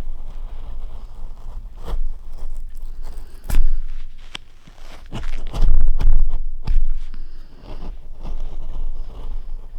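Irregular hand-work noise at a bench while making a linocut: scraping and rubbing with sharp knocks, the loudest knocks about three and a half seconds in and a cluster around six seconds in.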